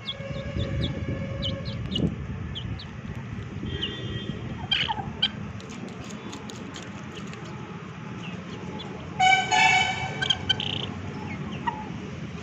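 Chickens pecking cooked rice from a steel bowl: short, scattered ticks of beaks against the rice and metal over a low background rumble. About nine seconds in, a steady horn-like tone, a vehicle horn, sounds for about a second and a half and is the loudest sound.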